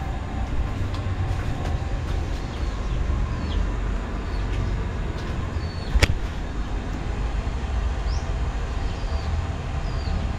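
Steady low outdoor rumble with short high chirps, like small birds, repeating every second or so, and one sharp click about six seconds in.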